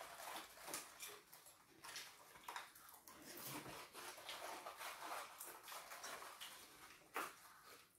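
Faint, irregular crunching, rustling and light clicks of children eating popcorn from plastic cups, with one slightly louder click about seven seconds in.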